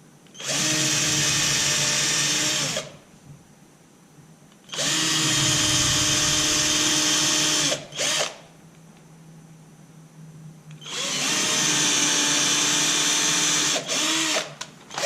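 Power drill with a small bit drilling pilot holes about an inch deep into the boat's transom, three runs of a few seconds each, the motor whining steadily and spinning down at the end of each, with a brief trigger blip after the second and third.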